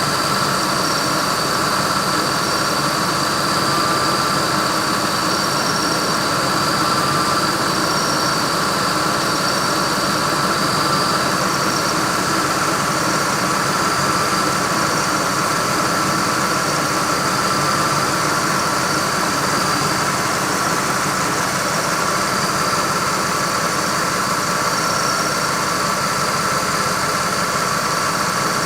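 Ford Expedition's 5.4-litre V8 idling steadily with the air conditioning on high and the compressor running, with a steady high whine over the engine.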